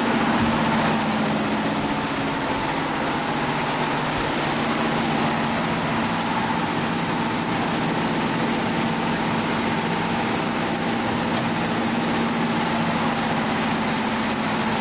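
Steady mechanical hum of a running machine: a low drone with a higher held tone above it, unchanging throughout.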